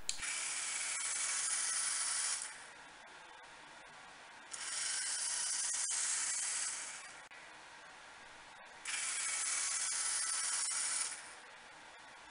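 FireBird V robot's geared DC wheel motors whirring in runs of about two seconds, with about two seconds of quiet between them, three runs in all. The robot is driving in one direction, stopping, driving the other way and stopping, as its test program commands.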